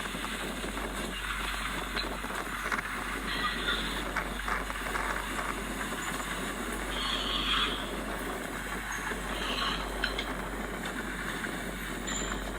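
Old Komatsu bulldozer running as it works soil, a steady machine noise with short high squeals every few seconds.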